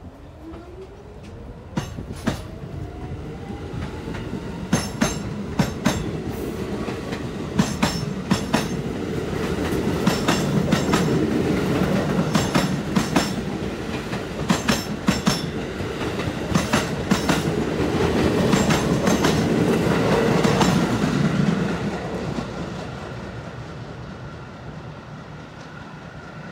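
R46 subway train pulling out of the station: a whine rising in pitch over the first few seconds as it speeds up, then the wheels clack over the rail joints as the cars pass, growing louder. The sound fades once the last car has gone, about 22 seconds in.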